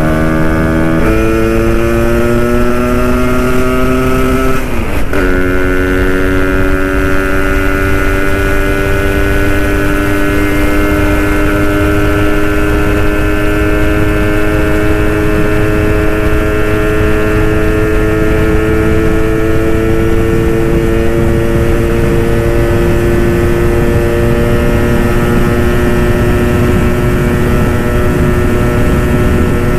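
Vespa Sprint two-stroke single-cylinder engine with an IDP cylinder block, at full throttle on a top-speed run. Its pitch dips briefly about five seconds in as it shifts up, then climbs slowly and levels off as the scooter nears its top speed.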